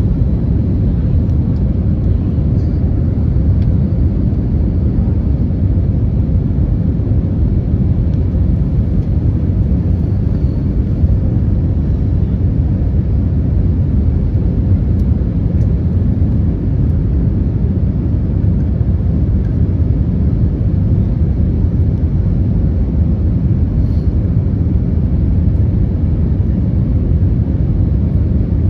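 Steady low roar of a Spirit Airlines Airbus A320-family jet airliner's engines and airflow in flight, heard from inside the cabin, holding an even level without change.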